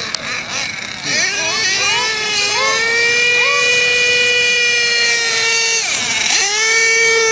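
Nitro RC drag car's small two-stroke glow engine revving at a high, steady pitch, with a few short throttle blips. About six seconds in the pitch drops sharply, then climbs back up.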